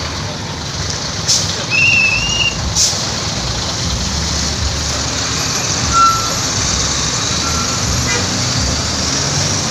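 Bus engines running, a steady low rumble under an even hiss, with two sharp clicks and a short high chirp in the first three seconds.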